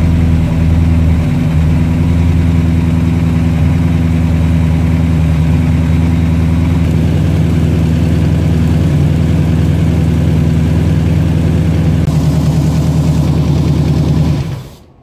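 A 502 cubic-inch big-block Chevrolet V8 with a four-barrel carburettor idling steadily. It cuts off near the end as the engine is shut down.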